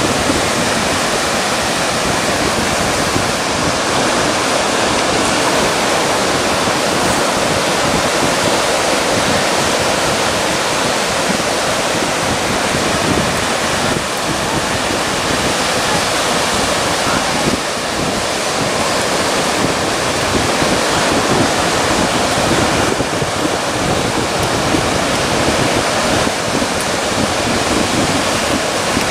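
Steady rushing of sea surf and shallow water washing over a reef, an even hiss with no distinct breaks.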